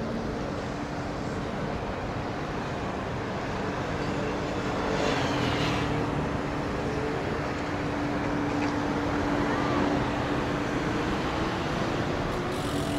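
City road traffic with a steady engine hum from a passing vehicle, rising slightly in pitch near the end.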